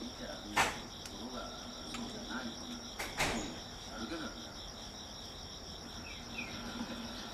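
Night insects trilling steadily in a fine, fast pulsing, high-pitched chorus, with two sharp knocks, about half a second in and about three seconds in.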